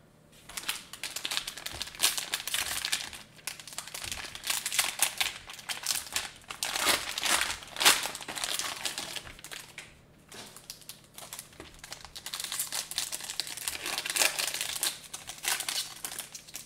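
Foil wrapper of a basketball trading-card pack crinkling and crackling as it is opened by hand, in spells with short pauses about three and a half and ten seconds in.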